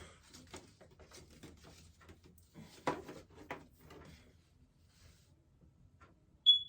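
Parts of a ring light kit being handled and fitted: small clicks and rattles, with two sharper clicks about three seconds in. Near the end comes one short, high electronic beep.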